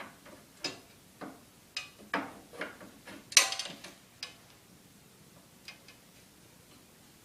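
Paramotor cage poles knocking and clicking as they are worked into the frame's sockets: a run of irregular knocks over about four seconds, with one louder clank about three and a half seconds in, then it goes quiet.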